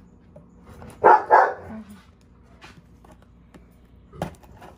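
A dog barking twice in quick succession about a second in.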